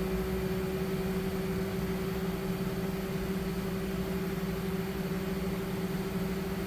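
Refinecolor RF-TS2 DTG printer running its 30-second ink-loading cycle: a steady motor hum with a constant mid-pitched tone over it, the pump drawing ink through to the print head.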